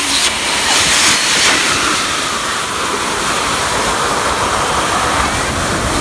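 Steady, loud rushing hiss of air blowing up through the holes of a perforated concrete vent cover.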